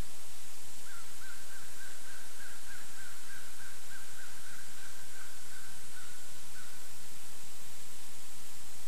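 Steady background hiss, with a faint bird trill over it: a rapid run of wavering notes at one pitch that begins about a second in and stops near seven seconds.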